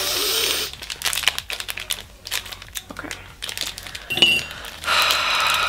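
Plastic Swedish Fish candy wrapper crinkling and crackling as it is handled and pulled at to get it open, with a longer rustle at the start and again near the end.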